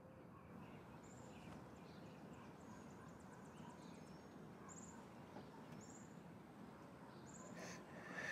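Near silence: faint outdoor ambience with a low hum, a few short high chirps scattered through it, and a cluster of soft clicks near the end.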